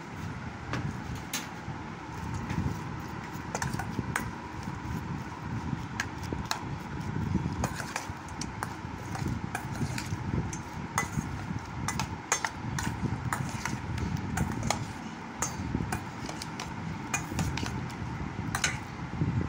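A metal spoon tossing wet apple slices in a stainless steel bowl, with irregular, repeated sharp clinks of spoon on bowl over a steady faint hum.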